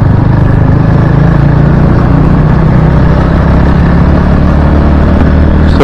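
Wind buffeting a helmet-mounted Akaso Brave4 action camera's microphone on a moving motorcycle: a loud, steady low rumble, with the motorcycle's engine running steadily underneath. The wind still overloads the mic despite the fix that was tried.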